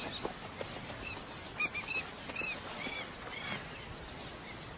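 African skimmers calling: short, sharp calls repeated at irregular intervals over a faint background hiss, thinning out near the end.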